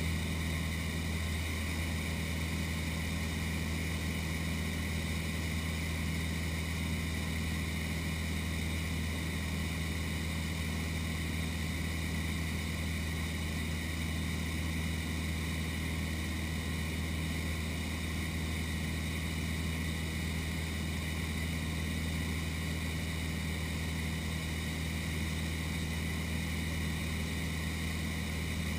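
Cessna 152's four-cylinder Lycoming engine and propeller droning steadily in cruise, heard from inside the cabin as a constant low hum.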